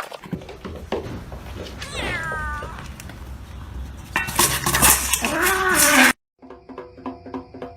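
A cat meowing: a falling meow about two seconds in, then a louder, longer yowl with clattering around it that cuts off suddenly about six seconds in.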